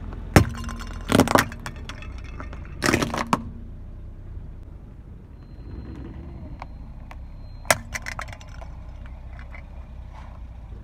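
Small coloured goblet-shaped cups cracking and shattering under a car tyre: three loud sharp cracks in the first three and a half seconds, another about eight seconds in, then small clicks of fragments, over the car's low rumble.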